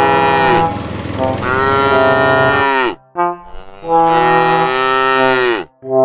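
Cow mooing, dubbed in as a sound effect: long drawn-out moos, each sinking in pitch at its end, about three in a row with short gaps between.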